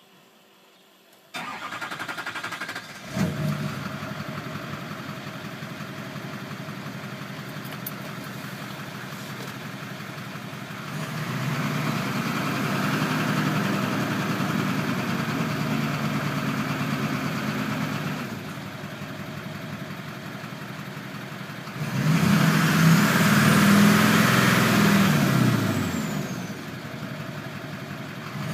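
Duramax 6.6 L V8 turbodiesel cranking for about two seconds, then catching with a loud burst and settling into an idle; the start is billed as a hard start. It is held at raised revs twice, the second time higher and louder, with a high turbo-like whine rising and falling, and drops back to idle in between.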